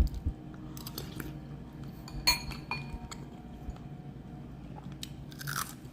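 Utensils and dishware clinking in a kitchen: a few light knocks, then one sharp ringing clink a little over two seconds in, and more small clatter near the end.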